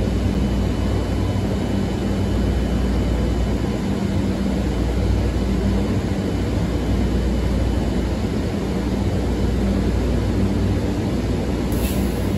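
2015 Nova Bus LFS transit bus approaching and pulling into the stop, its engine giving a steady low drone, with a short high hiss as it comes to a halt near the end.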